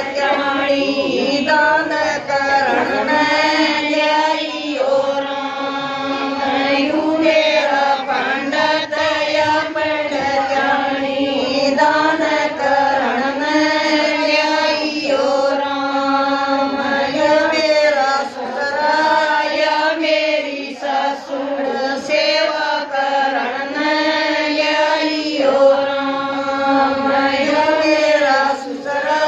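Women singing a Haryanvi devotional bhajan together in long held phrases.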